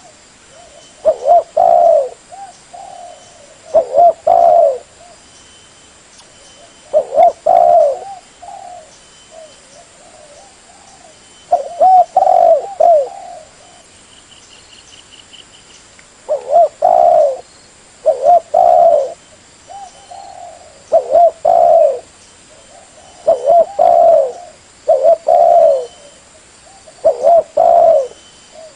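Spotted dove (tekukur) cooing: loud, repeated coo phrases of a few quick notes each, about one every one to three seconds, used as a lure call to draw in wild spotted doves.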